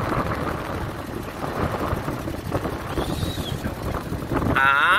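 Beach buggy's engine running as it drives over sand, with wind buffeting the microphone. Near the end a loud tone rises in pitch for about half a second.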